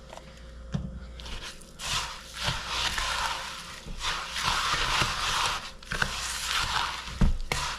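A thick suet mix of bird seed, oats and cornmeal in melted peanut butter and shortening being mixed in a bowl, with extra bird seed going in. It makes a gritty rustling in several long strokes, with a sharper knock near the end.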